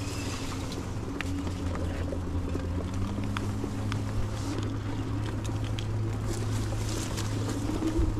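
Electric hub motor of an Aniioki A8 Pro Max fat-tyre e-bike humming steadily on throttle, its pitch rising slightly about three seconds in. Scattered sharp clicks and rattles come from the bike jolting over the rough grass trail.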